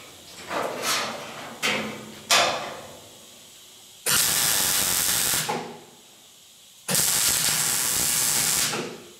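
MIG welder plug-welding a thin steel cab panel onto its thicker frame through punched holes: three short welds that each cut out quickly in the first couple of seconds, then two longer steady welds of about a second and a half each.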